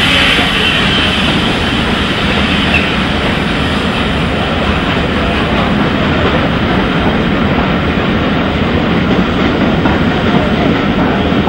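Coaches of a steam-hauled train rolling past close by: a loud, steady rumble of wheels on the rails.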